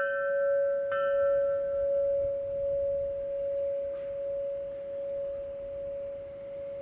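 Bell-like chime ringing, struck again about a second in, with one long tone that slowly fades.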